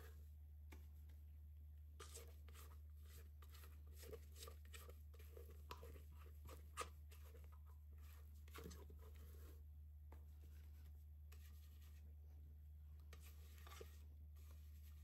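Spatula scraping thick almond meringue batter out of a stainless steel mixing bowl: faint scrapes and soft taps, busiest in the first half, with one sharper tap about seven seconds in, over a low steady hum.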